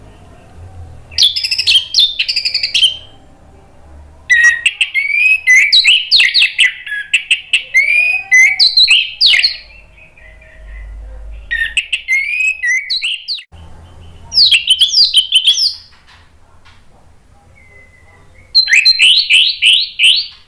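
Orange-headed thrush singing in several bursts of rapid, varied, sweeping high notes, with short pauses between phrases; the longest burst runs about six seconds.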